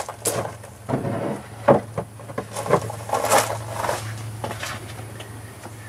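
A run of irregular clunks and knocks, objects being handled and set down, for about the first four seconds, then dying away, over a steady low hum.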